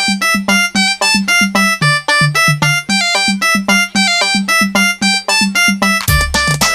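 Electronic keyboard music: a quick, even run of short piano-like synth notes, about five a second, over a steady low note. A heavier bass comes in about six seconds in.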